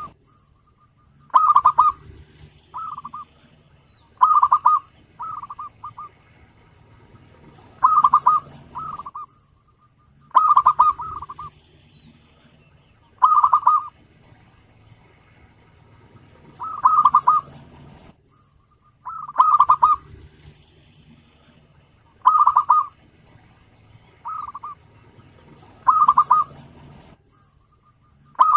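Zebra dove (perkutut) cooing: a loud, quick bubbling run of coo notes repeated about every two to three seconds, with shorter, softer coo phrases between some of them.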